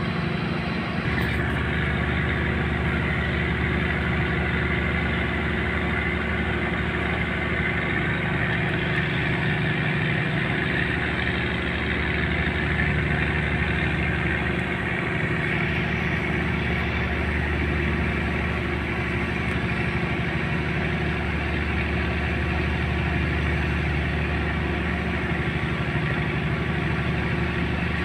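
A boat engine runs steadily with an even low drone that settles in about a second in, over a constant hiss.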